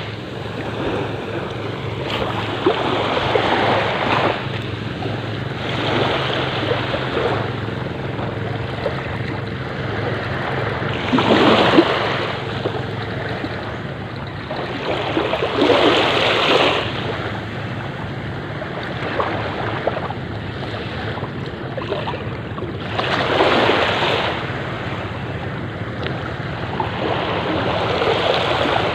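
Small waves washing at the shoreline, a wash every few seconds, over steady wind noise on the microphone.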